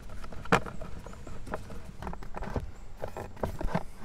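Irregular clicks and knocks of plastic and metal as the blower motor housing's small screws are worked out with a nut driver and the plastic blower housing is handled and jimmied loose.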